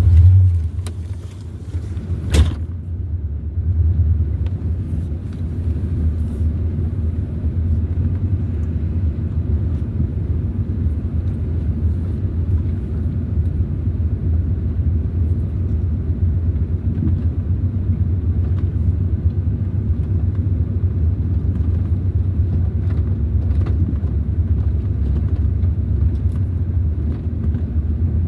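A steady low rumble, with one sharp click about two seconds in.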